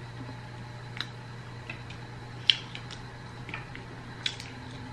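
Wet mouth clicks and smacks of someone chewing fish eaten by hand, a handful of short isolated ticks about a second apart, over a steady low hum.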